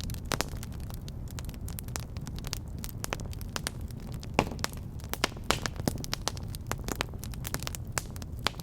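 Wood fire burning in a fireplace, a low steady rumble under frequent irregular crackles and pops, with one sharper pop a little past the middle.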